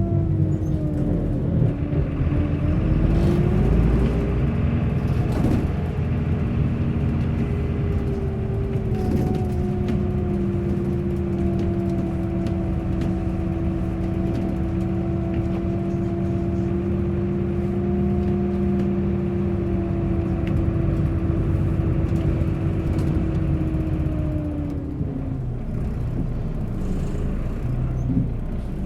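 Bus engine running with a low rumble. Its pitch sinks over the first couple of seconds, climbs again as it speeds up, holds steady for most of the stretch, then drops near the end.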